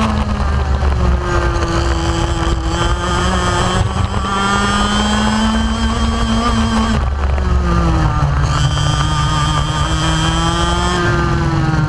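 125 cc two-stroke kart engine at race speed, heard from the driver's seat. The revs fall off near the start, climb steadily for several seconds, fall off again about seven seconds in for a corner, then build again.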